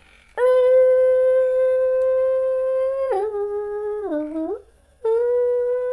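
A man humming long notes: one note held for nearly three seconds, then two lower steps ending in an upward slide, a short break, and the first note again.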